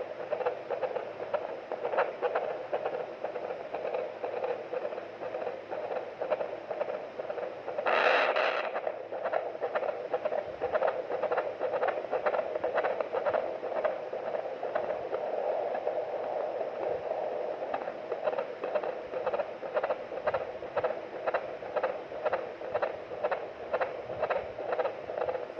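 Handheld fetal Doppler monitor's speaker playing a baby's heartbeat: a rapid, regular whooshing pulse, a little over two beats a second, over a steady hiss. The rate is normal for a full-term fetus. About eight seconds in, a brief, louder burst of noise breaks in.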